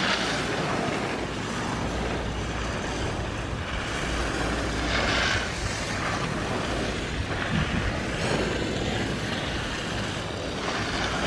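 Wind buffeting the microphone while riding a moving chairlift: a steady rushing noise with a low rumble, swelling in gusts about five, eight and eleven seconds in.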